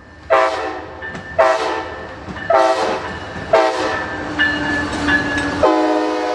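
Locomotive air horn sounding four short blasts about a second apart, then a long held blast near the end.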